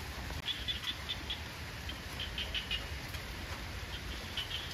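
Small animals chirping at night: short high chirps in little clusters, over a steady low rumble.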